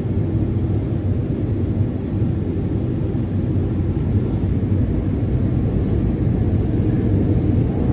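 Automatic car wash machinery running, heard from inside the car: a steady, dense low rumble that holds at one level throughout.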